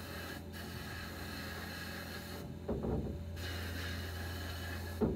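Abrasive blast cabinet hissing steadily as the nozzle blasts a small steel toy-truck part, over a low hum. The hiss cuts off briefly about half a second in, then stops for nearly a second around the middle, with a knock as the part is handled, and stops again near the end with another knock.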